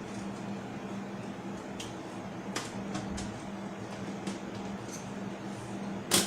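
Handling noises of a desktop computer's parts: a few light clicks and knocks, then a sharp double click near the end, over a steady low hum.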